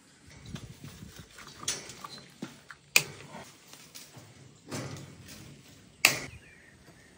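Pliers twisting tie wire on a steel rebar cage: scraping and rattling of wire against the bars, with two sharp clicks about three seconds apart.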